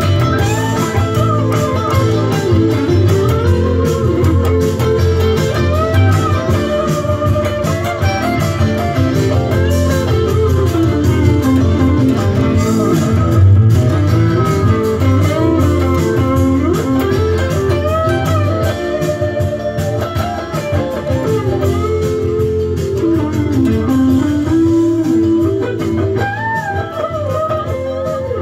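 Electric guitar improvising a melodic lead with bent, gliding notes on a Stratocaster-style guitar, played over the original band recording of the song. The music gets quieter near the end.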